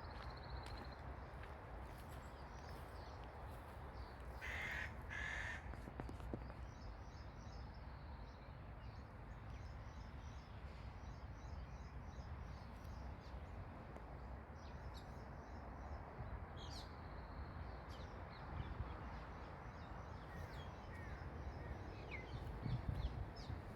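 Outdoor bird calls: two short, loud calls close together about four and a half seconds in, with faint high chirping from other birds now and then over a steady low background rumble.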